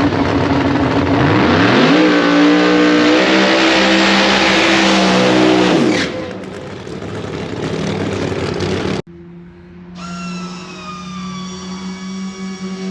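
Drag race car engine at full throttle, its pitch climbing about two seconds in and then holding, cut off suddenly about six seconds in. After a brief silence, an engine runs at a steady pitch.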